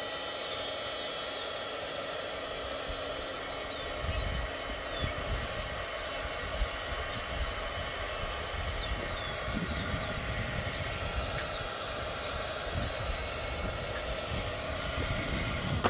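Handheld heat gun blowing steadily, aimed at a synthetic fabric flower to melt its petals. From about four seconds in, gusts of wind buffet the microphone.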